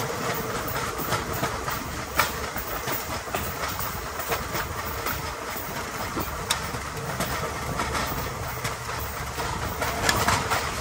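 A pedal rail bike's steel wheels rolling along old railroad track, making a steady rumble with irregular clicks and clacks. The sharpest clacks come about two seconds and six and a half seconds in.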